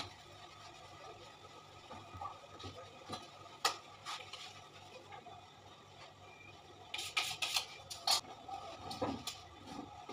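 Scattered light knocks and clatter, with a cluster of several about seven to eight seconds in, as a cake on its cake board is handled and set down on a metal cake-decorating turntable.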